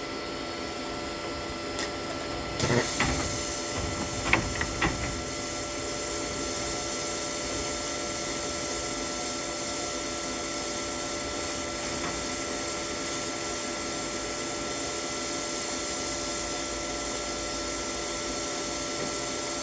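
TIG welding on a Toolion MIG-180 Pro inverter welder. A few clicks come as the arc is struck, then from about two and a half seconds in a steady hiss of the arc and gas runs on over the welder's constant hum.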